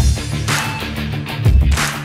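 Background music with a steady, heavy beat of deep bass hits.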